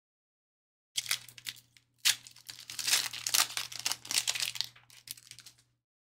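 Foil trading-card pack wrapper being torn open and crinkled: a run of crackly rustling that starts about a second in and stops about five seconds later.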